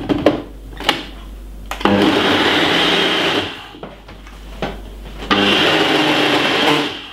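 Ninja smoothie blender running in two bursts of about a second and a half each, blending fruit with water into a smoothie, after a few sharp clicks.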